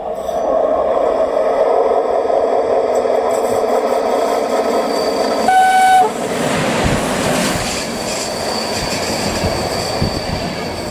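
CFR class 41 electric locomotive approaching with a steady running noise, sounding one short horn blast, about half a second long, as it draws level about halfway through. Its passenger coaches then roll by, the wheels clattering over the rail joints.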